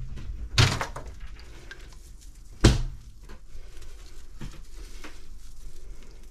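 Handling noise in a stainless steel kitchen sink as a bagged octopus is moved about. There are two sharp thumps about two seconds apart, the second the louder, with faint rustling and knocking between them.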